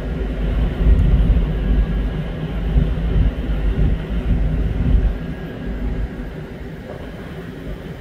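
Car ferry under way, heard from its open deck: a steady low engine rumble with a faint hum, and wind buffeting the microphone. It is loudest over the first half and eases off near the end.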